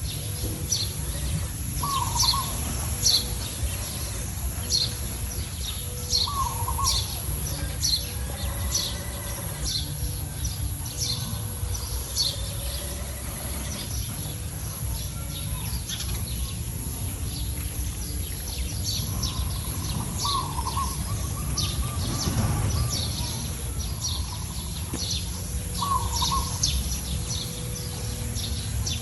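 Wild birds chirping: quick high chirps repeat steadily throughout, and a lower two-note call comes back every few seconds, over a steady low rumble.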